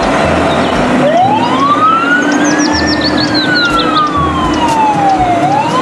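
Fire tanker truck's siren wailing: one slow rise and fall in pitch, then starting to climb again near the end. Quick high chirps sound briefly above it, over a steady rumble of engine and traffic.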